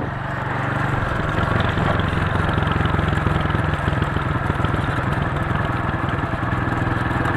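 Honda Titan 150 motorcycle's single-cylinder engine running steadily, with its chain drive making noise. A mechanic put the noise down to a worn front sprocket whose teeth bite the chain badly.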